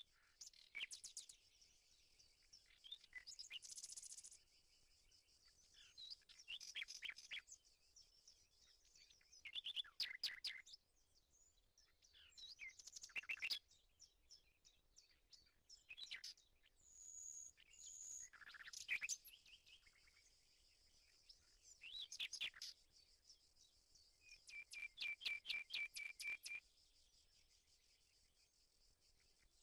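Songbirds singing: short, high chirping phrases every few seconds, with an evenly repeated trill of notes near the end.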